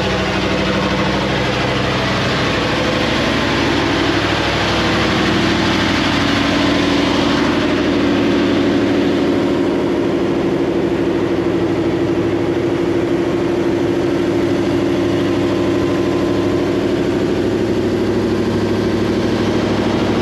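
Slow riverboat's inboard engine running steadily under way, a continuous drone heard on board. A broad hiss lies over it and thins out about seven seconds in.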